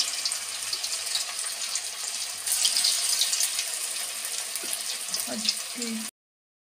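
Vegetable manchurian balls deep-frying in hot oil in a steel kadhai: a steady sizzling hiss dotted with many small crackles. The sound cuts off abruptly about six seconds in.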